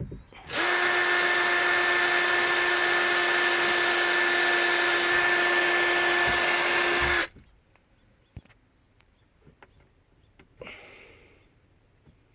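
Handheld electric power tool running at a steady high speed with a constant whine, starting about half a second in and stopping after about six and a half seconds. A few faint clicks and a brief rustle follow near the end.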